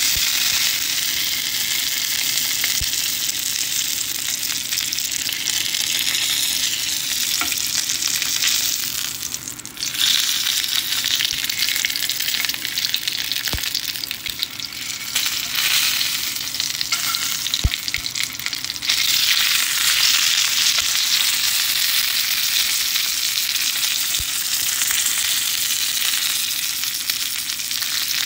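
A5 Wagyu steak sizzling in hot oil in a frying pan as its edges are seared, held in tongs. The sizzle steady, dipping briefly about ten seconds in and easing for a few seconds in the middle before it comes back strong.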